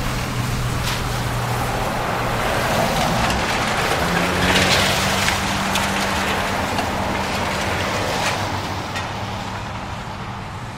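Caterpillar wheeled excavator demolishing a house: its engine runs steadily and steps up in pitch about four seconds in, over a rough noise of breaking debris with a few sharp cracks.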